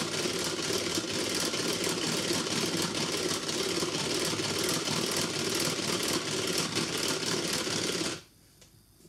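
Tupperware Speedy Chef 2 hand-cranked beater being turned fast, its gears giving a rapid rattling whir as it whips cream into chantilly, which is nearly stiff. The cranking stops abruptly about eight seconds in.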